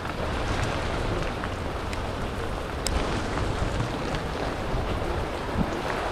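Steady rain falling on a wet street, with scattered sharp drop ticks close by and a deep rumble underneath.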